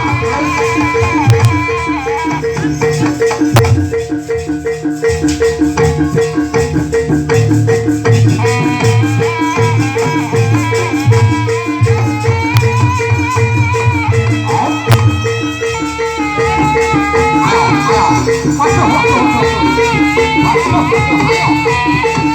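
Music: an ensemble playing a rapid, steady pulse with a wavering melody line over it and a bass part.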